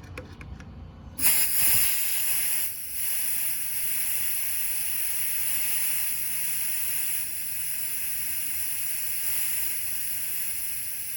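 Air hissing steadily out of a 2012 Ford F-150's left rear tire through its valve, starting about a second in: the tire is being deflated to trigger training of its TPMS sensor.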